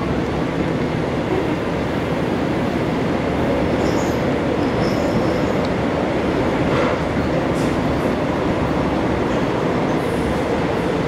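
Running noise heard inside a moving Seoul Metro 2000-series subway car (rheostatic-control stock): a steady rumble of wheels on the rails and the car's running gear, even in level throughout.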